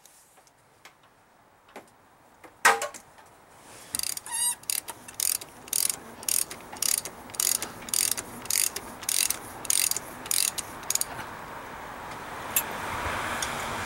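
Socket-wrench ratchet clicking in short, even runs, about two a second for some seven seconds, as a delivery valve on a Bosch P-7100 diesel injection pump is turned out. A single sharp knock comes about two and a half seconds in, before the ratcheting starts.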